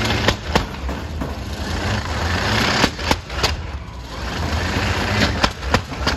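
A competition pulling tractor's engine running hard on the track, a deep steady rumble. Sharp bangs come in small clusters: twice just after the start, three times around the middle, and three more near the end.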